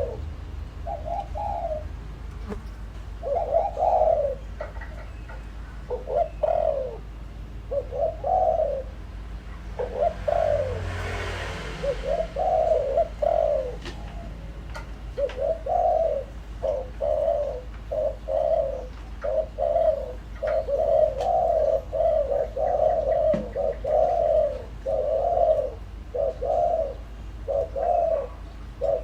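Spotted dove cooing over and over in short phrases, the decoy bird's luring call, with the notes coming quicker and more closely packed in the second half. A brief hiss is heard about a third of the way in.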